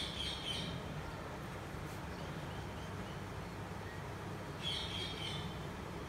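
Pet rose-ringed parakeet giving two short, shrill chattering calls, one at the start and one about five seconds in, over a steady low background hum.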